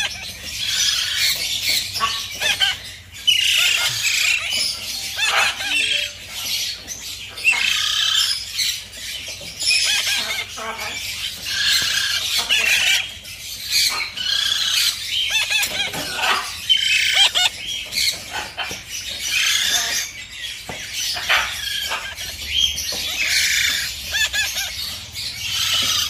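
Baby parrot chick giving harsh, raspy begging calls, repeated rapidly and almost without pause while it is hand-fed with a syringe.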